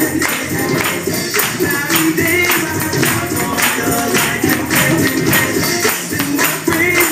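Music with a steady beat and a tambourine shaken in rhythm.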